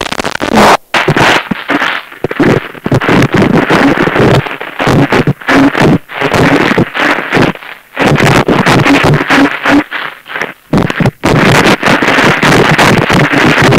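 Harsh noise music: loud distorted noise in irregular, stuttering bursts that cut out abruptly and start again.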